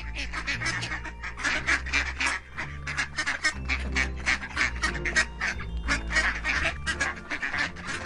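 A duck quacking in a fast, steady run of short calls, about four or five a second, over soft background music.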